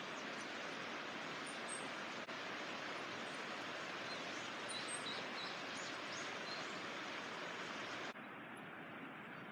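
Steady outdoor hiss of rural ambience with faint, high, short bird chirps in the middle. About eight seconds in the hiss abruptly becomes quieter and duller.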